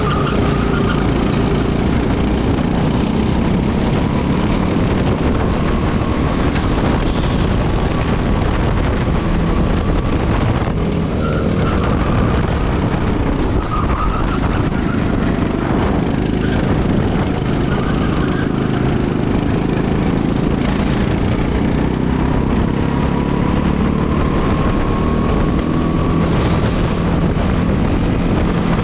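Rental go-kart engine running hard under the seat, heard from onboard as the kart is driven at racing speed, its pitch shifting with the throttle through the corners and climbing slowly as it accelerates down the straight near the end.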